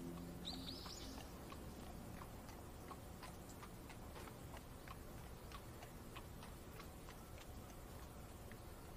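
Faint rain ambience: a soft, even rain hiss with light, sharp ticks about twice a second. A short rising bird chirp comes about half a second in.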